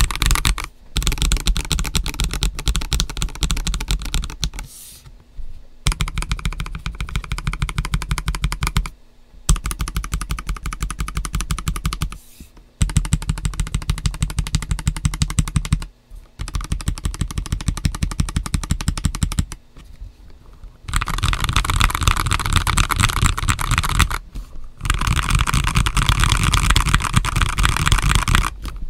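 Fast typing on a stock, unmodified GAS67 mechanical keyboard fitted with Akko Starfish switches and Terra PBT dye-sub keycaps. It is a dense run of key clacks in stretches of a few seconds, broken by short pauses.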